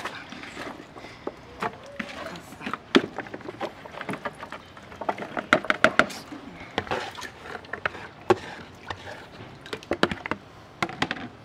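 Chopped onion, ginger and garlic pieces dropped by hand into a blender jar, an irregular run of small clicks and knocks against the jar, thickest about halfway through and again near the end.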